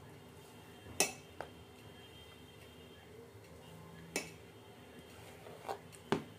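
Grated carrot being pushed off a plastic tray into a pressure cooker: the tray knocks against the cooker's rim about five times at uneven intervals, sharp clicks over a faint steady hum.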